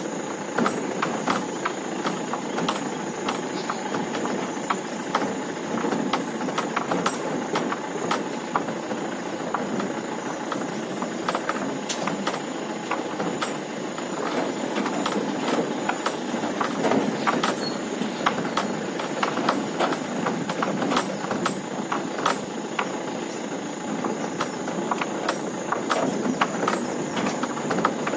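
Mahindra Bolero pickup rolling slowly over a rough, rutted dirt track, its body and load bed rattling steadily with frequent sharp knocks and clanks as it jolts over the bumps.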